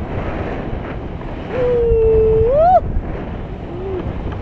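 Wind rushing over the camera microphone in tandem paraglider flight. About a second and a half in, a person gives one long held cry that rises in pitch at the end, then a short fainter one.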